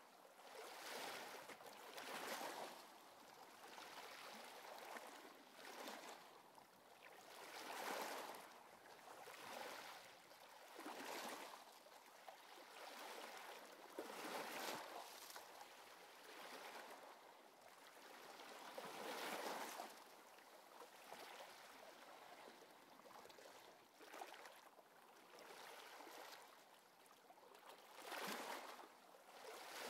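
Soft, surf-like swishing of sea waves, each swell rising and fading every one to three seconds.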